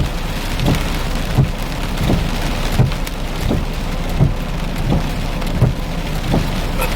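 Heavy rain beating on a vehicle during a thunderstorm: a steady dense hiss, with a regular low thump about every three quarters of a second.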